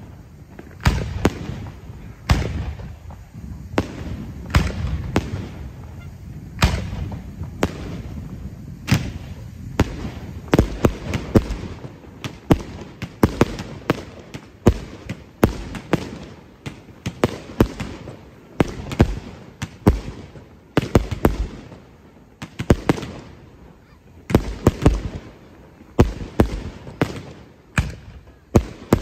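Aerial fireworks display: shells launching and bursting in a dense, irregular barrage of sharp bangs, often several a second, over a continuous low rumble.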